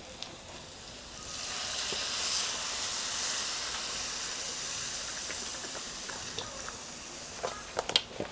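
Chicken broth hissing and sizzling as it hits a hot pan of butter and vegetables: the hiss swells about a second in and slowly dies away over several seconds. A few sharp clinks of a utensil against the pan near the end.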